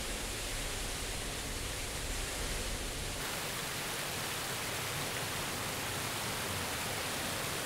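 Water rushing steadily down an overflow spillway, an even noise with no rhythm. About three seconds in, the sound loses its low rumble and becomes more hissy.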